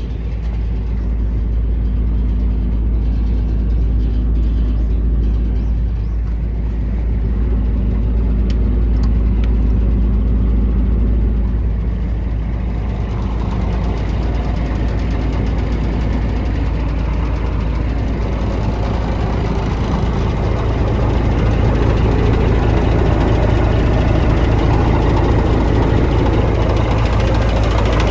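Scania P124 truck's six-cylinder diesel engine idling steadily, a deep even rumble that grows slightly brighter about halfway through.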